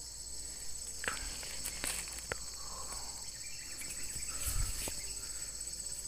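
Steady high-pitched chorus of insects, with a few soft rustles and clicks of movement in dry undergrowth and a low thump near the middle.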